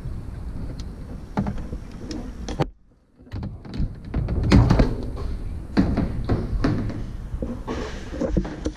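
Irregular knocks and thunks of kayak paddles against the hull and the corrugated metal culvert wall, echoing inside the pipe.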